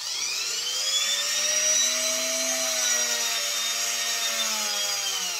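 Handheld rotary tool running at speed with a brass wire-wheel attachment, scrubbing caked black gunk off a model locomotive's wheel axle. A steady high whine whose pitch sags slightly near the end.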